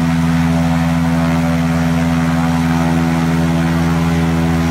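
Eos 150cc two-stroke paramotor engine and propeller running steadily at a constant speed, the engine still cold and not yet warmed up.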